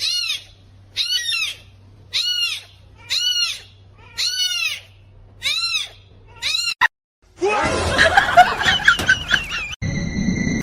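A high, short animal call, rising then falling in pitch, repeated seven times about once a second. After a break it gives way to a louder, jumbled mix of noisy sound.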